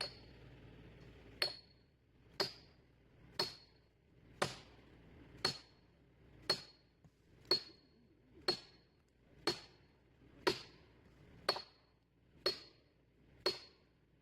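Hammer blows driving a felling wedge into the back cut, struck at an even pace of about one a second, fourteen in all, each a sharp metallic knock with a short ringing ping.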